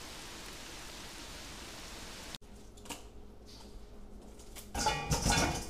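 Steady rain falling, an even hiss that cuts off suddenly about two and a half seconds in. Then kitchen handling noises at the counter, with a louder burst of rustling and clatter near the end.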